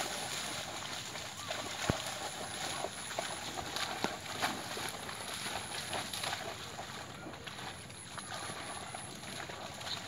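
Dogs splashing and wading through shallow water, with many short splashes and sloshes as they run and play.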